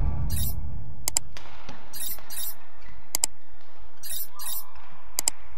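Badminton rally: racket strings striking the shuttlecock with three sharp clicks about two seconds apart, with short hissy shoe scuffs on the court mat in between and a low thud at the start.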